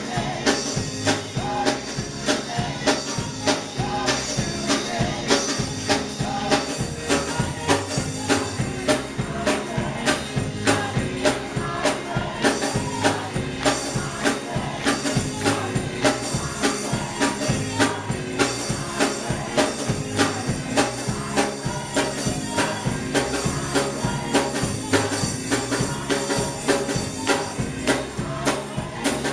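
Gospel praise music in a Baptist church: singing over instruments, with a steady, even percussive beat.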